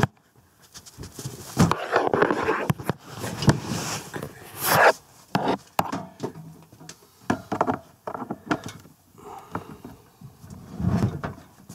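Irregular scrapes, knocks and rustles of a person moving about and handling objects close to the microphone.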